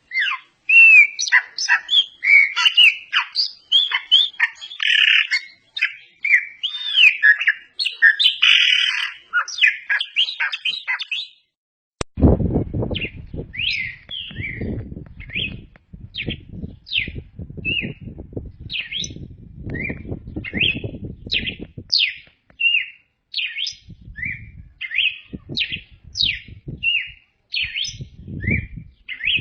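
Songbirds singing. First comes a rapid, varied warbling song full of gliding notes. About twelve seconds in it cuts to a different bird repeating short, separate high notes, about one and a half a second, over a low rumble.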